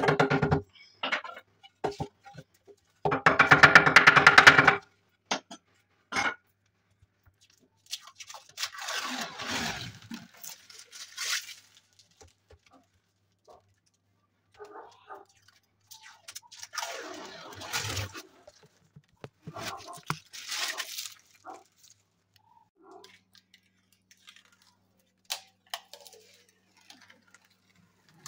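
A short stretch of music with a beat, then intermittent rustling, scraping sweeps and a few sharp taps from hands working on a red kitchen panel.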